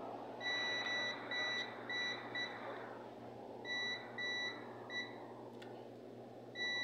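Digital multimeter's continuity beeper giving short high-pitched beeps, about eight in three groups, as the test probes touch points on the circuit board. The beeps signal a short circuit on the board.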